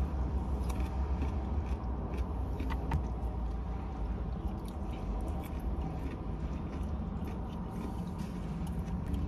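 People chewing and biting into food, with small scattered clicks of mouth and food sounds, over a steady low hum in a car cabin.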